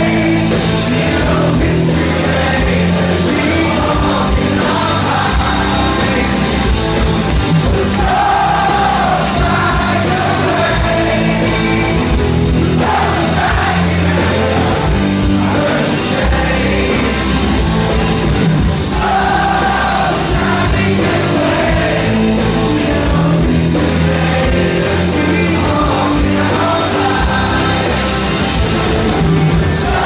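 Live rock band playing, a man singing lead over electric guitars, bass and drums, recorded from the audience in a large hall.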